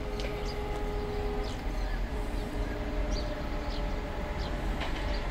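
A distant electric locomotive horn holding steady tones for about the first second and a half and then fading, over a low rumble, with short high chirps scattered throughout.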